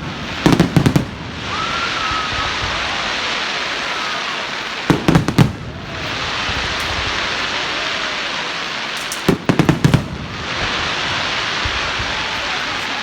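Fireworks display: three clusters of rapid loud bangs about four seconds apart, with a steady crackling hiss filling the gaps between them.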